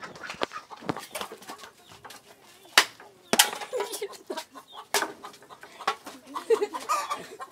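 Domestic hens clucking, mixed with sharp knocks and clatter, the loudest two close together about three seconds in.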